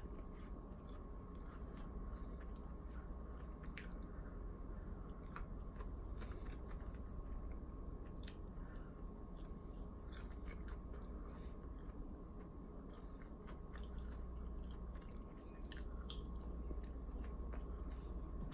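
A man chewing and biting pieces of orange chicken close to the microphone, with many small scattered clicks and crunches of the mouth, over a steady low hum.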